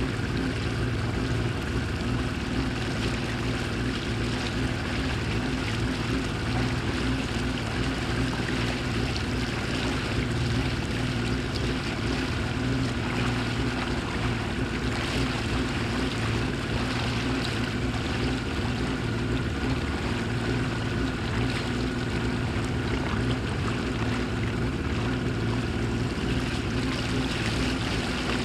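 Boat motor running steadily at an even pitch, with water washing.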